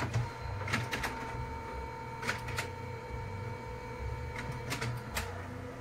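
HP Color LaserJet Pro MFP M477 laser printer running its internal motors with a newly replaced fuser film. It makes a steady whine over a low hum, with several sharp clicks from the mechanism.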